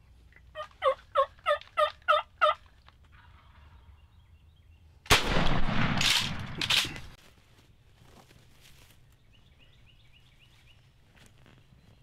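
A series of about seven wild turkey yelps, evenly spaced at roughly three a second, each note falling in pitch. About five seconds in, a single loud shotgun blast, its noise dying away over about two seconds.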